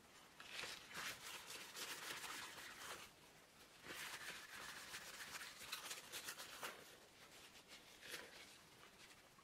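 Faint rubbing and rustling of a dry paper towel wiped over a small glass display window, in two stretches of quick strokes a few seconds each and a short one near the end.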